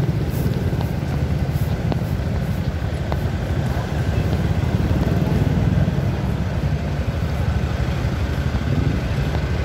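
Steady road traffic on a busy city street, a continuous low rumble of vehicle engines and tyres passing.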